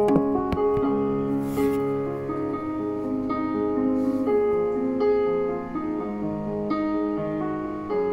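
Background piano music: a slow melody of held notes.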